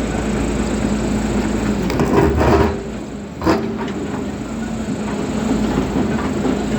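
Volvo excavator's diesel engine running steadily, with a crunching scrape about two seconds in and a sharp crack about a second later as the machine works rock.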